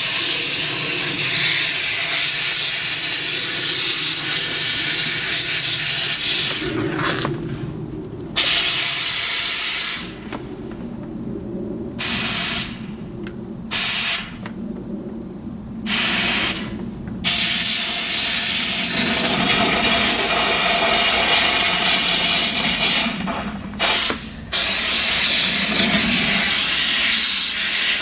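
Steam cleaner's jet hissing as it blasts into a sewing machine's mechanism, in long blasts broken by several short bursts as the trigger is released and pressed again.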